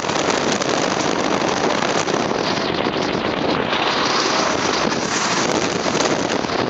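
Wooden roller coaster train running fast along its wooden track, heard from on board with loud, steady wind noise on the microphone.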